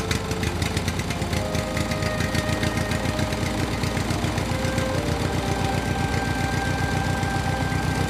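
Small tractor-style engine running steadily with a rapid, even chug, as of a toy crawler bulldozer at work.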